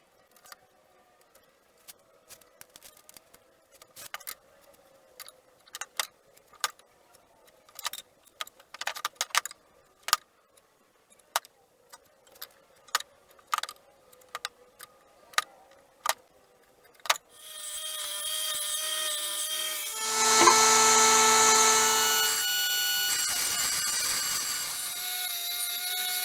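Woodworking tools: irregular sharp taps for a long stretch, then an electric power tool starts up about seventeen seconds in and runs steadily with a whine.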